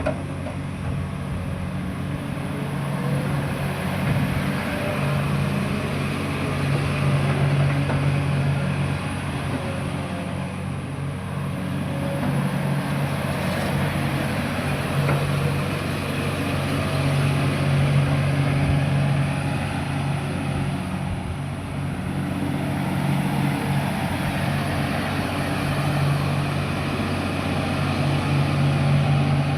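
Kobelco SK380XDLC excavator's diesel engine running steadily, swelling louder and easing back every several seconds.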